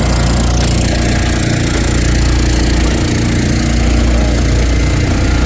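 Engine of an Eastonmade wood splitter running at a steady speed.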